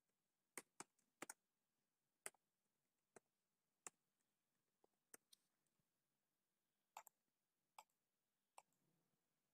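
About a dozen faint, irregularly spaced clicks from a computer keyboard and mouse, over near silence.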